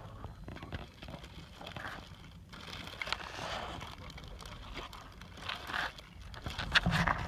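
Thin plastic bags crinkling and rustling as they are handled and pulled open close to the microphone, over a low rumble of wind on the microphone.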